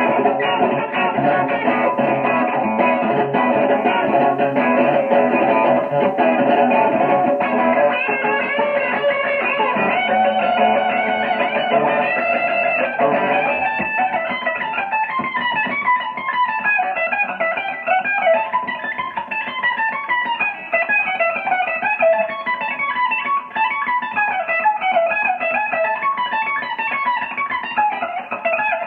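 Electric guitar, a Telecaster-style solid-body played through a small combo amp. It starts with dense, rapid picked notes, and from about halfway through it moves into a clearer melodic lead line of separate note runs.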